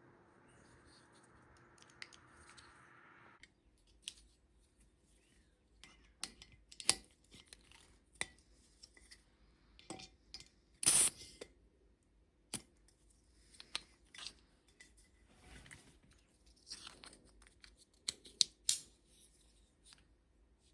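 Scattered clicks and short scrapes of a Umarex/Elite Force Glock 18C gas blowback airsoft pistol being handled, its metal and plastic parts sliding and clicking, with one longer, louder scrape about eleven seconds in.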